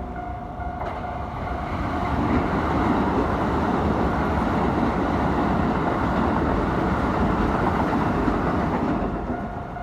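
A Keikyu electric train passes close by over a level crossing with a loud, steady rush of wheel and running noise. It builds up over the first couple of seconds and eases off near the end. The crossing's electronic warning bell rings in a pulsing tone at the start, is drowned out while the train goes by, and is heard again as the train clears.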